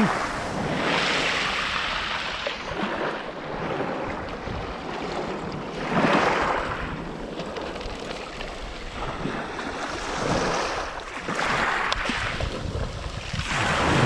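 Sea waves breaking and washing up a pebble beach, swelling in surges every few seconds, with wind buffeting the microphone.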